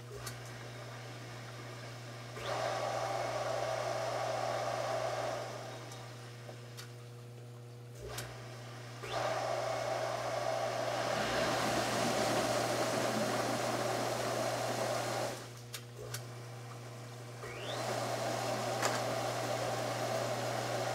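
A newly installed hot tub pump is switched on three times and off twice. Each time it spins up with a rising whine and runs with a rushing hum. It is being jogged on and off to bleed trapped air from the pump. The middle run is the longest and grows louder and rougher, and a few sharp clicks fall between the runs.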